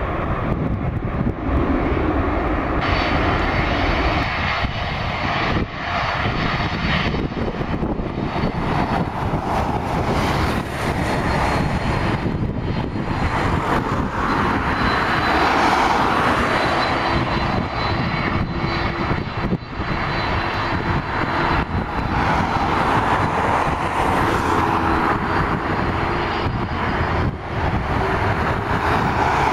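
Jet airliner engines running: a loud, steady rush of engine noise, with faint whining tones in the second half.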